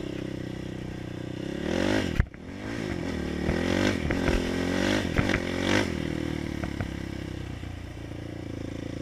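A 450cc sport quad's engine under hard riding, revving up and dropping off several times as the throttle is worked, with a sharp clack about two seconds in and a few lighter knocks. It pulls cleanly without popping or hesitating, freshly tuned, then settles to a steadier, lower run near the end.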